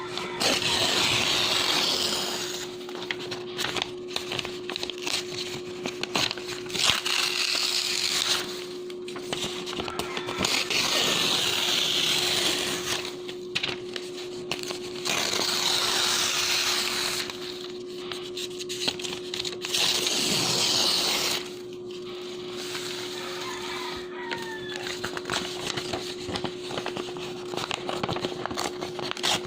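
Sheets of clean bond paper torn by hand in five long rips of about two seconds each, with crackling paper handling between the tears. A steady low hum runs underneath.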